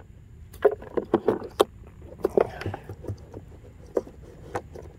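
Hands handling an RC boat during a battery change: irregular clicks, knocks and small rattles of the hull, hatch and battery.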